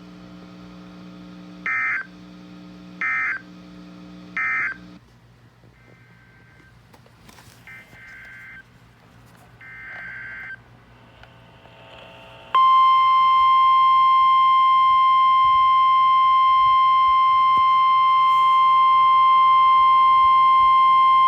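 Emergency Alert System signals on NOAA Weather Radio. First come three short bursts of warbling two-tone SAME digital data, the end-of-message code closing the tornado watch, followed by three fainter data bursts. About twelve seconds in, the steady 1050 Hz weather alert tone starts and holds for about nine seconds, the loudest sound, announcing the new severe thunderstorm warning.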